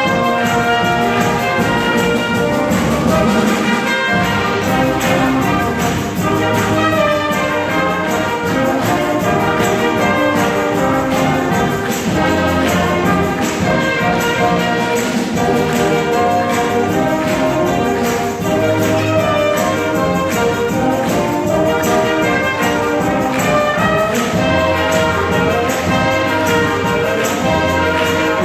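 School wind band playing a Spanish-style piece, brass section to the fore with trumpets and trombones over a steady low bass line.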